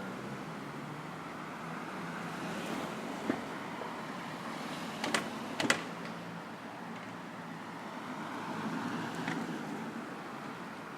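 Street ambience: a steady hum of traffic and city noise, broken by a few sharp clicks or knocks, one about three seconds in and a close pair a little before the middle that are the loudest sounds.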